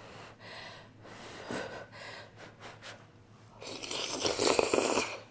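A person slurping noodles off a spoon: a few faint mouth noises, then a long, loud slurp beginning about three and a half seconds in.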